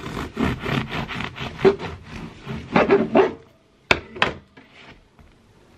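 Kitchen knife sawing through the crust of a homemade loaf, in quick rasping strokes for about three seconds. Then two sharp knocks about four seconds in as the slice comes away and drops onto the chopping board.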